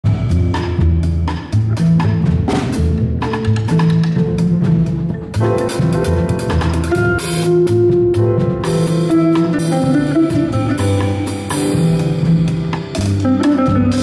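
Ten-string bandolim (Brazilian mandolin) picking a bolero melody over a jazz rhythm section of double bass and drum kit, with walking bass notes and light drum and cymbal strokes throughout.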